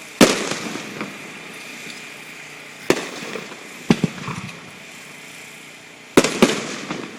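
Fireworks shells bursting overhead: a loud bang early on, single bangs about three and four seconds in, and two close bangs a little after six seconds, each trailing off in a short rumble.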